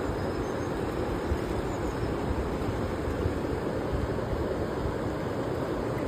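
Seti River water rushing steadily, an even noise without breaks.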